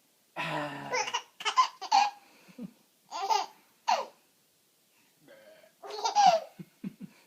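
A man's long, low burp, then a baby laughing in several short bursts of giggles.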